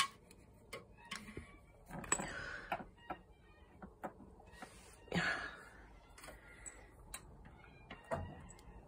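Faint scattered light clicks and taps of a cat's paw batting at a small jeweled brooch on a wooden floor, with two brief soft rustles about two and five seconds in.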